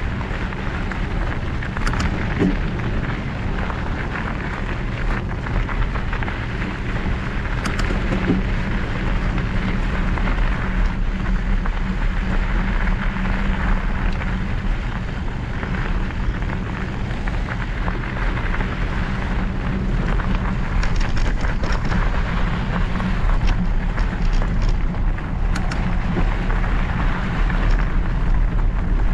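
Riding noise from a Specialized Epic Evo Expert mountain bike on a loose, gravelly dirt trail: steady wind rumble on the microphone mixed with tyres crunching over the gravel. A few sharp clicks from stones and bike parts, and the riding noise grows slightly louder in the last third.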